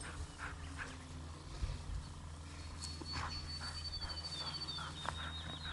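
Outdoor field ambience: a thin, high trill with short falling chirps sets in about halfway through and runs on, over a low steady rumble and soft rustling strokes.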